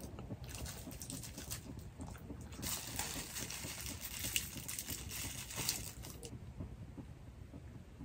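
Thin disposable plastic gloves crinkling as they are handled and pulled off the hands: a dense, crackly rustle that builds about two and a half seconds in and stops about six seconds in.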